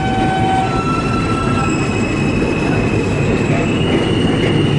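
Subway train running: a steady rumble of wheels on rails, with high squealing tones over it.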